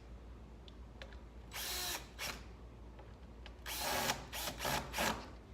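Power drill driving screws into Appleply plywood in short bursts: a brief run about a second and a half in, a longer one near four seconds, then a few quick pulses as the screw is snugged down.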